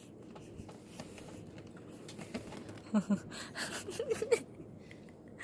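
Faint background noise with a few short vocal sounds from a person, one about three seconds in and a quick run of brief notes about four seconds in.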